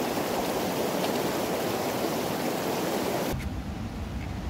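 Rushing mountain stream, a steady loud wash of water over rocks. About three seconds in it cuts off abruptly, leaving only a low rumble.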